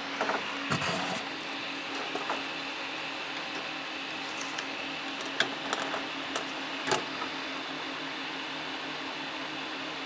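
The Peltier cooler's twin 92 mm 12-volt fans running with a steady whir and hum, the unit switched on for its cooling test. A few sharp clicks and knocks of hands handling the plastic bucket and lid come through over it.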